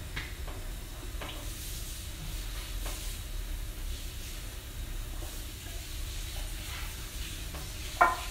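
Eating noises: faint chewing and small mouth clicks over a steady low hum, with a sip from a mug. Near the end a single sharp knock as a ceramic mug is set down on a marble tabletop.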